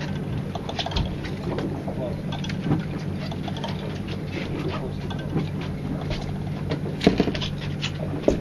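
Boat engine running steadily, with scattered light clicks over it and a couple of sharper knocks near the end.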